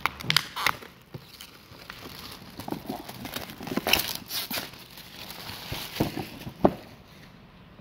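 Plastic shrink wrap being pulled and torn off a cardboard game box, crinkling and crackling in irregular bursts, with one sharp tap near the end.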